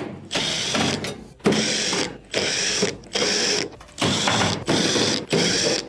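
Phillips screws being backed out of the range's sheet-metal rear panel with a screwdriver, a run of short rattling mechanical bursts about a second apart.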